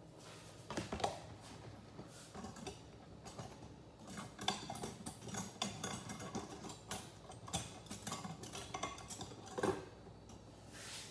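Dishes and utensils clinking and knocking: a run of light clicks with a louder knock about a second in and another near the end.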